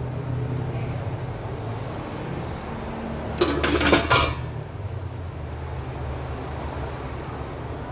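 Metal cookware and utensils clattering in a brief burst about halfway through, over a steady low hum.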